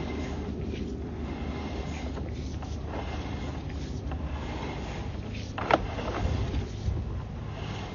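Sewer inspection camera's push cable being pulled back out of a cast iron sewer line, with a steady low hum and a few sharp clicks, the loudest about six seconds in.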